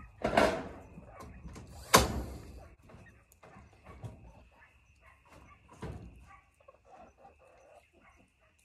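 Cordless battery-powered nail gun firing nails into wood framing lumber: three sharp shots, the loudest about two seconds in and a weaker one about six seconds in.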